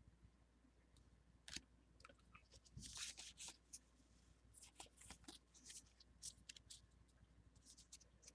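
Faint crinkling and crackling of a foil Pokémon booster pack wrapper being handled and torn open, in scattered short crackles.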